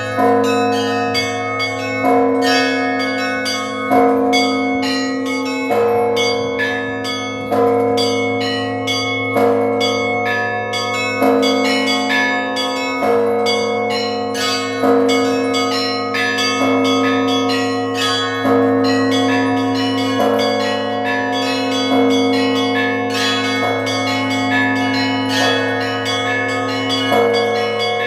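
Russian church bells rung by hand in a peal: a low bell hum sustained beneath, a heavier middle bell struck about every two seconds, and small bells chiming in quick patterns above.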